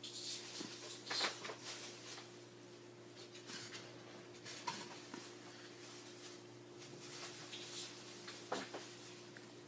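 Domestic cat licking its paw close up: soft, irregular wet licking clicks and fur rustles, over a faint steady low hum.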